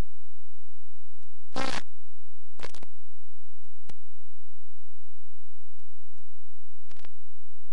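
A steady low hum, with short crackles and clicks scattered over it. The longest come about a second and a half in and near three seconds.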